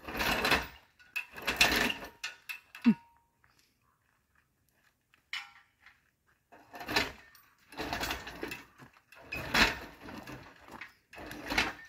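Engine hoist being worked to lift a stripped car body: short bursts of metallic rattling and ratcheting. There are two near the start, then about four more spaced roughly a second and a half apart in the second half.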